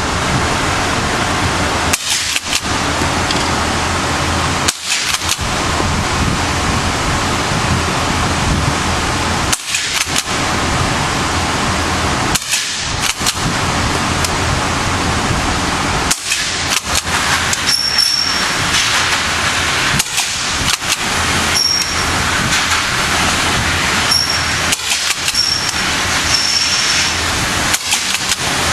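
Handgun or rifle shots fired one at a time at intervals of a few seconds, about a dozen in all, over a loud, steady background noise.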